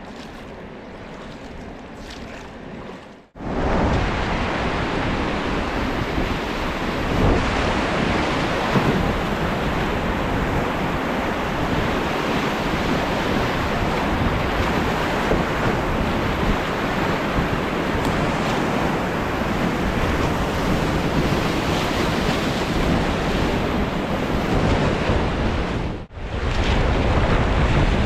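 Rushing river water, a steady loud roar with wind buffeting the microphone. It is quieter for the first few seconds, then jumps suddenly much louder, with a brief drop near the end.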